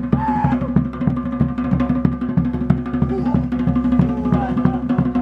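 Tahitian drum ensemble playing a fast, driving rhythm of rapid, evenly spaced strikes on wooden to'ere slit drums over a deep, steady drum boom.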